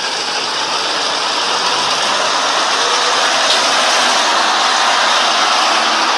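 Steady rushing noise of a vehicle running, with no distinct knocks or changes.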